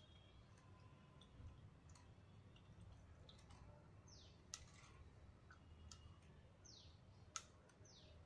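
Faint clicks of a metal spoon knocking against a bowl while stirring and scraping pomegranate pulp, with two sharper knocks about halfway through and near the end. A few short falling chirps, like a bird calling, sound in the background.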